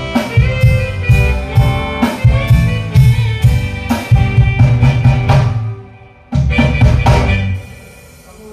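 Band music with drum kit and bass playing a steady beat; it breaks off about six seconds in, and a single final hit rings out and fades.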